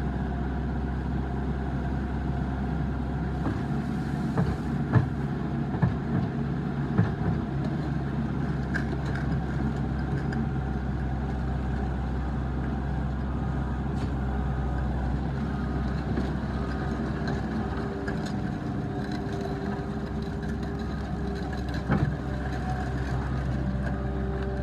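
Mustang MTL20 skid steer's engine running steadily, with a few sharp knocks or clanks about five to seven seconds in and again near the end.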